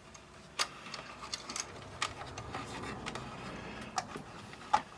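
Scattered light clicks and taps, about five in a few seconds, from small tools and parts being handled during bench repair work.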